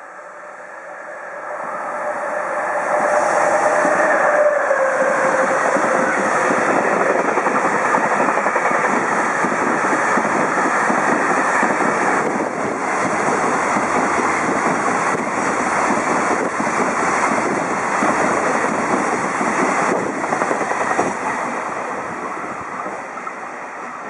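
JR Freight EF66 DC electric locomotive hauling a high-speed container freight train past at speed. It swells over the first few seconds with a falling whine as the locomotive goes by, then a long loud rush of wagons with repeated rail-joint clacks, easing off near the end.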